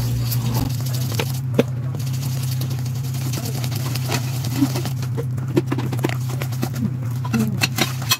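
Wire whisk stirring flour into batter in a stainless steel bowl, its wires clicking and scraping against the metal in irregular taps, over a steady low hum.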